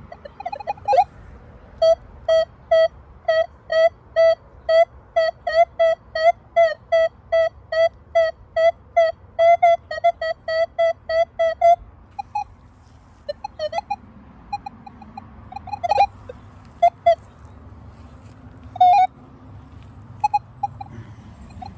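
Metal detector beeping over a buried target: short beeps at one steady pitch, about two or three a second, then a few scattered single beeps after about twelve seconds.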